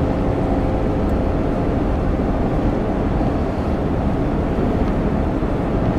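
Steady road and engine noise heard inside the cabin of a car driving at speed, a constant low noise with no changes.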